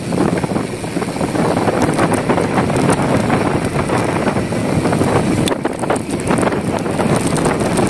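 Wind rushing over the microphone of a moving bicycle, mixed with tyre and road noise and many small clicks and rattles.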